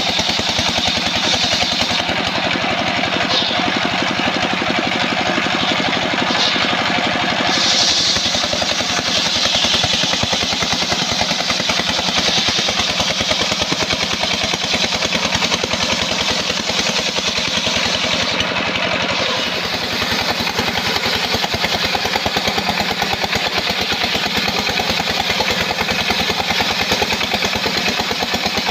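Belt-driven circular sawmill ripping a sengon (albasia) log lengthwise: its engine runs steadily with a fast, even beat, while the blade cuts through the wood with a continuous loud rasp.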